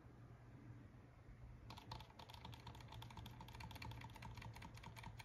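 Faint, rapid clicking of computer keyboard keys, starting a little under two seconds in and running on at about ten clicks a second, over a low steady hum.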